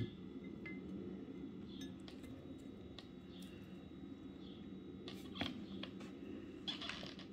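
Faint clicks and light taps of dishes being handled on a table, a small cluster about five seconds in and more near the end, over a steady low background hum.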